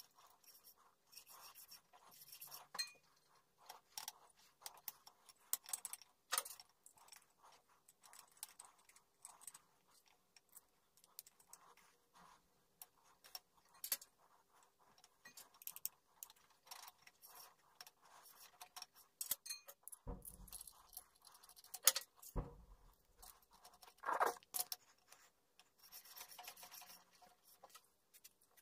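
Metal parts of a sharpening jig being handled and fitted by hand: steel plates, brackets, threaded rods and nuts clinking, scraping and clicking against each other in short, irregular bursts, with a few heavier knocks later on.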